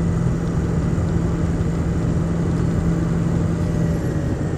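Ford 6.0 Powerstroke V8 turbo-diesel running, heard from inside the cab, with the steady noise of its engaged cooling-fan clutch: a loud, even drone with a strong low hum.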